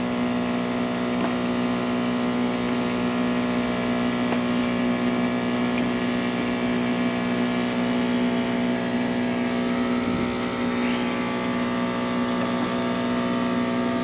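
Toauto 3 kg medium-frequency induction furnace running at power, its water-cooling pump and fans giving a steady hum of several fixed pitched tones.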